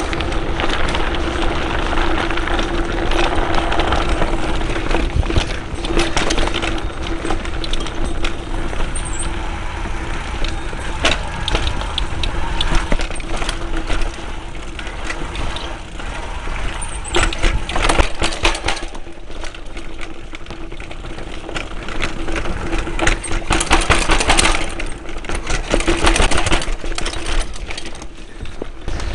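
Giant Reign X1 full-suspension mountain bike riding down a rough dirt trail: tyres rumbling over the ground while the chain and frame rattle and clatter, in louder bursts over the bumpier stretches, with a steady hum underneath.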